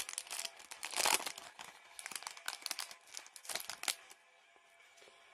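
Foil wrapper of a Pokémon TCG Sun & Moon booster pack crinkling and tearing as it is opened by hand, dying down about four seconds in.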